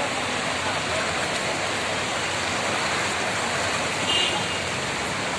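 Heavy rain falling steadily, an even hiss of water, with a brief high-pitched tone about four seconds in.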